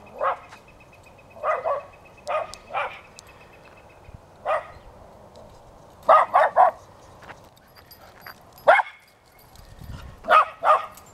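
Australian Cattle Dog barking: about a dozen short, sharp barks in irregular bunches of one to three, the loudest a quick triple about six seconds in and a single bark near nine seconds.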